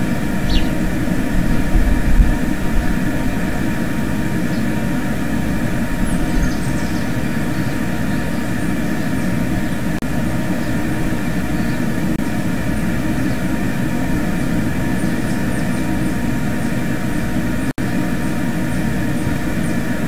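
Steady mechanical drone, like an engine or machine running, with faint short high chirps now and then.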